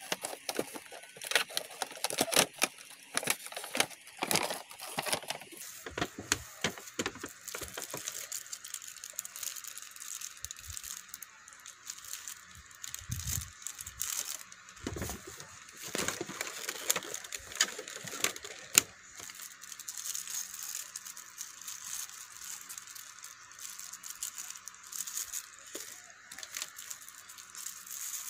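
Plastic bags and cardboard packaging crinkling and rustling in the hands, with scattered clicks and rattles of small plastic accessories being unpacked. The handling is busiest in the first half, and there is one sharp click about two-thirds of the way through.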